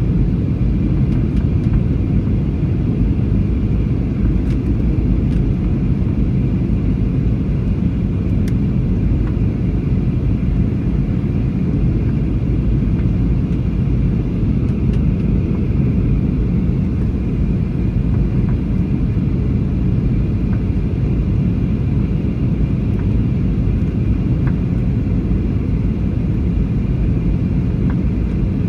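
Steady low rumble of airliner cabin noise in flight, the engines and rushing airflow heard from inside the passenger cabin, with a faint steady hiss above it.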